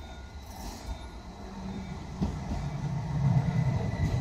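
Tram approaching and pulling into a platform stop, its low running rumble on the rails growing steadily louder, with a short click about two seconds in.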